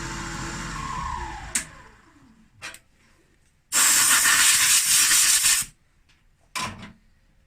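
Milling machine spindle running, then spinning down with its whine falling in pitch and fading about a second in, followed by a click. Then a loud two-second hiss of blowing air, and another click near the end.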